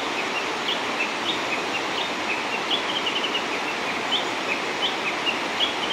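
Mountain stream rushing steadily, with a small bird's short high chirps repeating over it every second or so.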